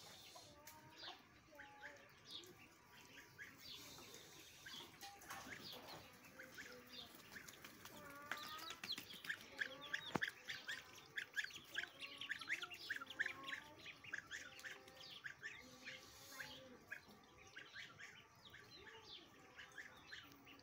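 Faint bird chirping: quick runs of short high calls, busiest in the middle.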